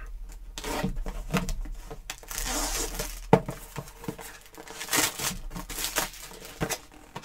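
A cardboard camera box being opened and its plastic packaging pulled out: crinkling and rustling with many short clicks and knocks, and a longer rustle about two and a half seconds in.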